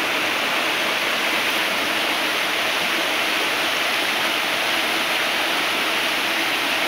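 Small waterfall cascades splashing over rock into a shallow pool: a steady, even rush of falling water.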